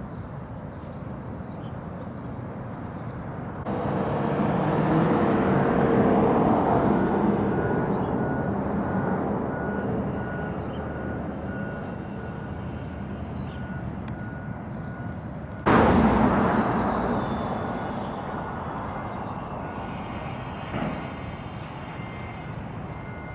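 Outdoor traffic noise: an engine passing swells in about four seconds in and slowly fades. A faint, evenly repeating beep runs under it, and a second loud rush of engine noise starts suddenly about two thirds of the way through and then dies away.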